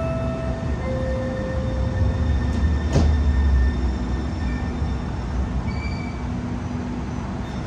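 Sound Transit Link light rail train pulling out of the station: a steady low rumble of motors and wheels on the rail, with a few brief whining tones and one sharp clack about three seconds in.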